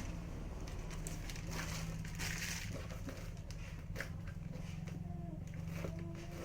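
Rustling and scattered light clicks of small objects being handled, over a steady low hum.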